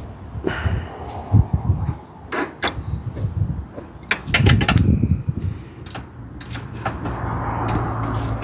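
Metal hand tools clinking and knocking against a small motorcycle's exhaust fittings as a wrench is worked on the fasteners. A low steady hum comes in about six seconds in.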